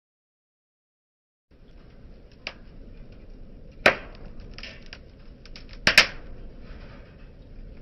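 Wood fire burning: a low steady rush of flames with sharp crackles and pops. The fire starts after a moment of silence; the loudest pop comes about four seconds in and a close pair about six seconds in.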